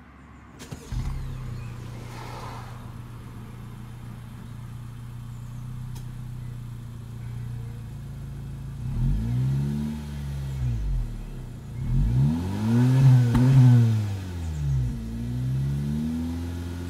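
Honda Civic 1.5 Sport Plus's 1.5-litre VTEC Turbo four-cylinder engine heard at its stock twin tailpipes. It starts about a second in and idles steadily, then in the second half it is revved several times, each rev rising and falling back to idle.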